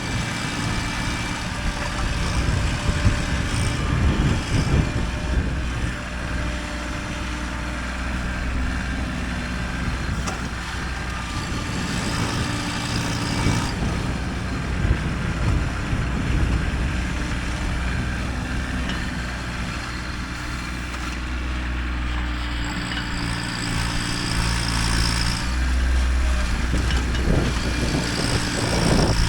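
Kubota tractor's diesel engine running steadily while working dirt, its engine note shifting with the load a few times.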